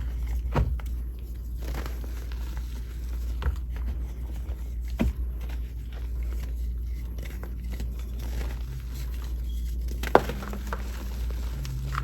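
Gym chalk being crushed: irregular crunches and crackles, with a sharper, louder crack about ten seconds in, over a steady low hum.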